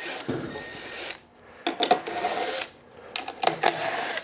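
Steel sockets and hand tools clinking and rattling as they are rummaged through, in three bursts with sharp metal clicks.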